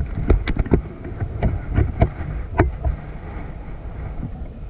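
About ten sharp, irregular knocks or clicks in the first three seconds, over a steady low rumble of wind and handling noise on the microphone.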